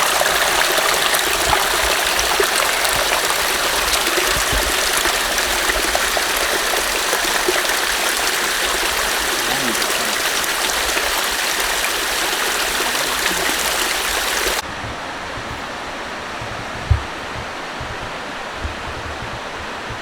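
Steady rush of flowing water, like a mountain stream. About fifteen seconds in it cuts suddenly to a quieter rush, with a couple of soft low thumps.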